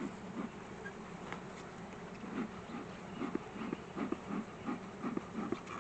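Italian honeybees buzzing steadily around an open hive, with a scatter of short knocks and clicks throughout.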